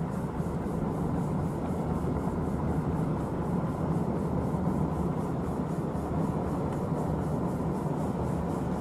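A car driving along a country road, heard from inside the cabin: steady tyre and road rumble with engine noise.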